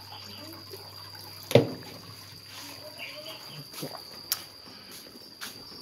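Water trickling and dribbling under a steady high-pitched trill, with one loud knock about a second and a half in and a sharp click about three seconds later.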